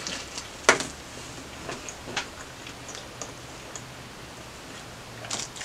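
Biting into a Subway steak and cheese footlong sandwich and chewing it close to the microphone: one sharp crunch under a second in, then small wet clicks of chewing, and a few more near the end.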